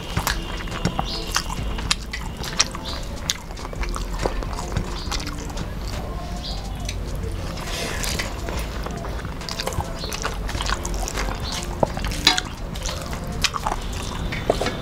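Eating by hand: fingers mixing rice and curry on plates, with scattered wet clicks and smacks of chewing.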